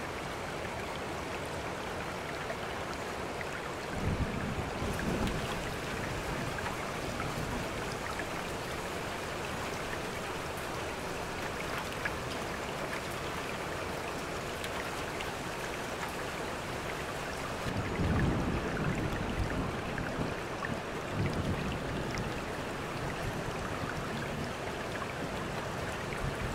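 Steady rain mixed with running water, with low rumbles of thunder about four seconds in and twice more later on.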